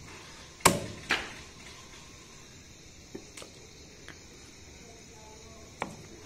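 Meat cleaver chopping raw duck on a wooden log chopping block: two sharp chops close together about a second in, a few faint knocks in the middle, and one more chop near the end.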